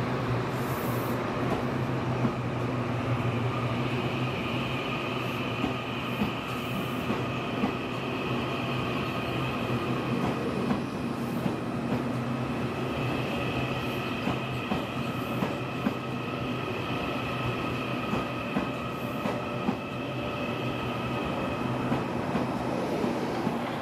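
TRA EMU800 electric multiple unit pulling out and running along the platform, with a steady whine from its motors. Its wheels click over the rail joints every second or two.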